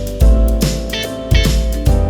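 Background music: an upbeat instrumental track with plucked guitar over a steady beat with strong bass hits.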